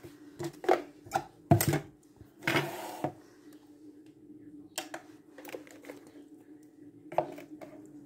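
Handling noise as a plastic basin of dried fish is moved and set down on a kitchen scale: scattered knocks and clatters, with a short rustle a little before three seconds in. A steady low hum runs underneath.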